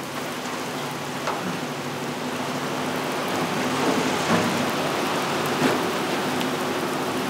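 Heavy tropical downpour: a steady hiss of rain that swells up over the first second, with a few sharper drop splats along the way.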